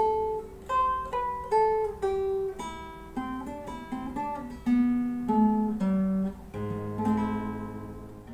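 Acoustic guitar played solo in a slow phrase of single plucked notes over bass notes, each left to ring. A final chord about two-thirds of the way through rings on and slowly fades.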